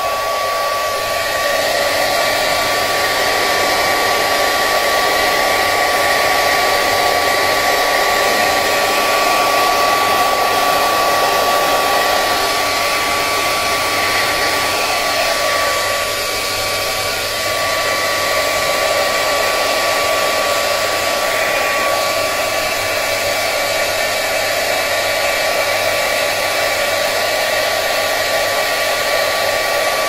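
Hairdryer running steadily, a high motor whine over the rush of blown air, drying out a water-soaked boiler flow sensor.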